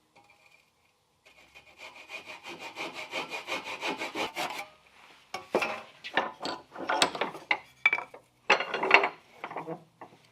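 Hand saw cutting wood. A run of quick, short strokes, about four a second, gives way to slower, louder separate strokes.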